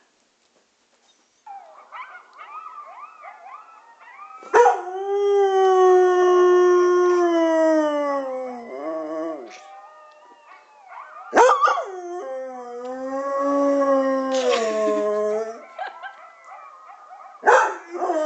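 English springer spaniel howling: three long howls, each starting sharply, the first sliding slowly down in pitch. The howls are preceded by a few seconds of quieter, wavering higher-pitched calls.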